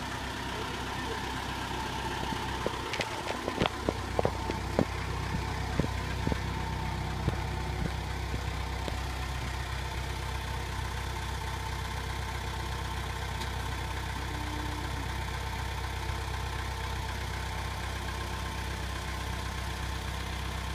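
An engine idling steadily, with a run of sharp knocks between about three and seven seconds in.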